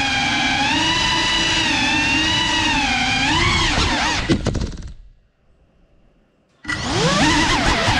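Cinewhoop drone's brushless motors and ducted propellers whining, the pitch rising and falling with throttle. A little after four seconds in there are a few sharp knocks as the drone comes down to the floor, the motors wind down and stop, and about a second and a half later they spin back up with a rising whine.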